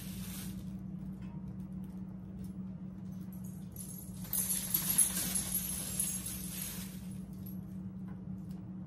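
Plastic packaging crinkling and rustling for about three seconds, starting about four seconds in, while cheese slices are handled, over a steady low hum.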